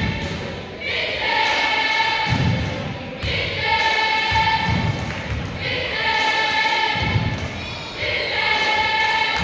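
A group of voices chanting one held, repeated cheer in unison, each call about a second and a half long, about four times. A low thud falls between the calls.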